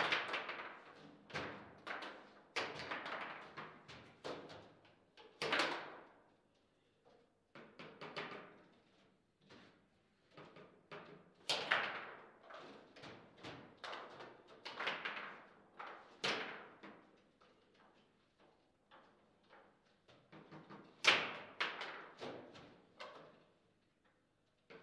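Foosball table in play: irregular sharp clacks and knocks of the ball striking the plastic players and table walls and of the rods being worked. Louder shots stand out every few seconds.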